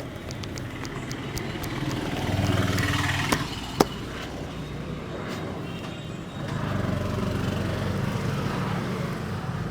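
Street traffic: motor vehicles pass twice, their low engine hum swelling for a few seconds each time. A single sharp snap sounds about four seconds in.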